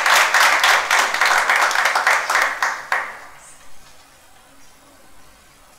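A small audience applauding, the claps thinning out and dying away about three seconds in.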